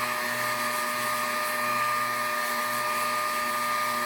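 Vacuum cleaner hooked up to a Hookit dust-extraction sanding system, running with a steady motor whine.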